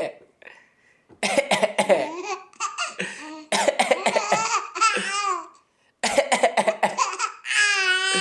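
An adult coughing in short bursts, each answered by a small child's giggling laughter, with a long high-pitched laugh near the end.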